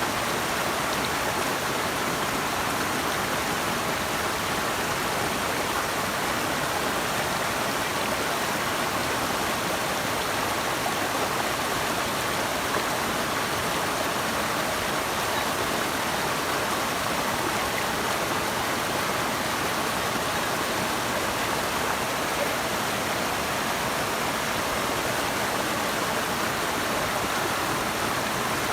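Steady, unbroken rush of flowing water from a stream, with no separate splashes or other events.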